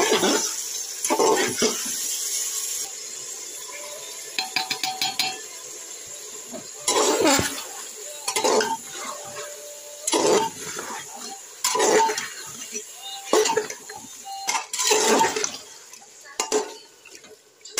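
Metal spoon scraping and clanking against an aluminium pot while stirring mutton pieces with spices, in a string of short, uneven strokes, with a quieter lull a few seconds in.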